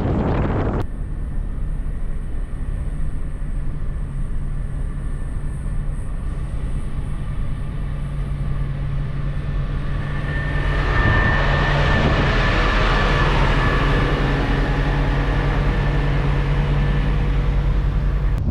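A vehicle running with a steady low engine hum. About ten seconds in, a louder rushing sound with a faint steady whine swells up, then fades a few seconds before the end.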